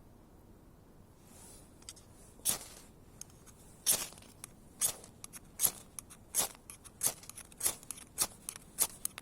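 Wood fire catching and crackling: sharp pops and cracks of burning wood, a few at first, then coming about twice a second.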